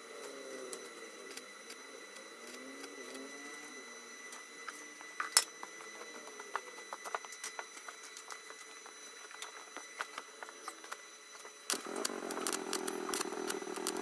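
Faint engine sound with scattered light clicks and taps. About twelve seconds in, a louder, steady engine note cuts in.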